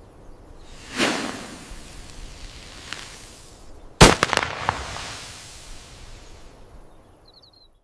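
Dynamite explosion sound effect: a first blast swells up and peaks about a second in, then the loudest, sharp detonation hits about four seconds in. Several quick cracks follow it, and a rumble fades out over the next few seconds.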